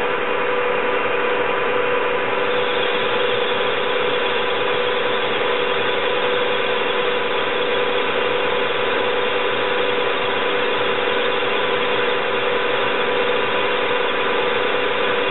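CNC lathe running steadily while a turret-mounted turning tool cuts a spinning metal bar: a steady motor whine of several fixed pitches over an even machining noise.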